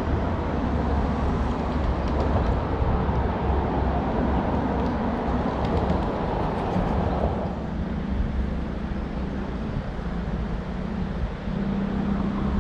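Road traffic passing, a steady low rumble that is louder for the first half and eases off about seven seconds in.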